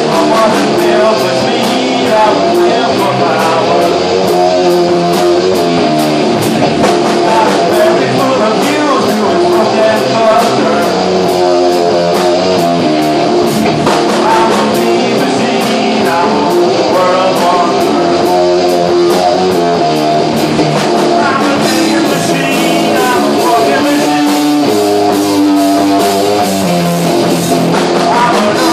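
Rock band playing live: guitar over a drum kit, with cymbal strikes keeping a steady beat.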